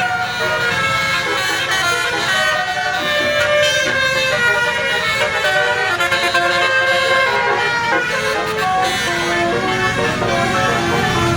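Bus fitted with a Basuri telolet multi-trumpet horn playing a musical melody, note after note, over the bus engine running underneath.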